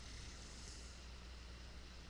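Faint steady low hum with an even hiss behind it, a near-quiet background.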